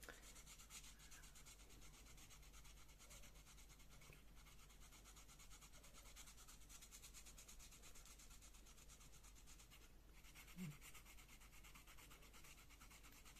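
Faint, steady fine scratching of a knife blade scraped along the skin of a green apple, scraping off its wax coating.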